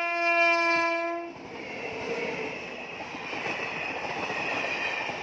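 WAP7 electric locomotive's horn sounding one steady blast that cuts off about a second in, followed by the growing rumble of the approaching train on the rails.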